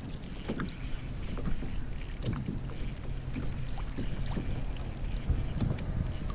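Wind buffeting the microphone and water moving against a kayak hull, with scattered light ticks and knocks.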